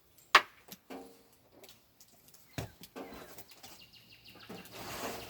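A sharp click about half a second in, then scattered knocks of tool and material handling, with a rising noisy whir building near the end.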